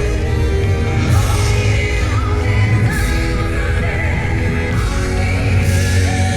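Loud recorded yosakoi dance music with a heavy rock beat and singing, played over a PA system, with a shout or two from the dancers.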